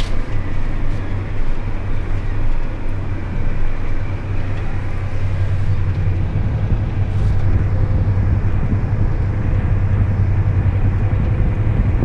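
Large farm tractor's diesel engine running steadily under way, with an even low hum, heard from inside the cab.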